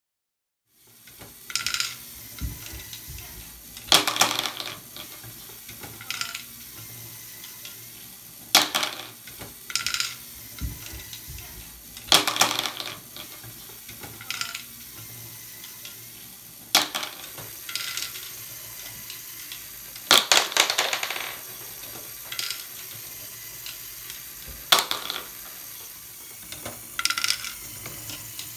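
Motor-driven Lego Technic ball contraption module running: a steady motor hum with sharp clatters of small plastic balls and plastic parts every few seconds as the arm lifts and drops the balls. It starts about a second in.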